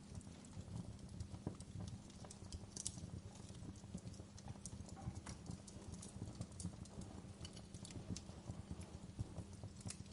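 Wood fire crackling in a fireplace: irregular small pops and snaps over a low, steady rumble of the burning fire.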